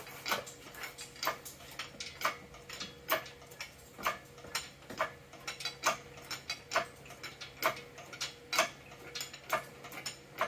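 A steady series of sharp clicks, about two a second and slightly uneven, over a faint steady hum.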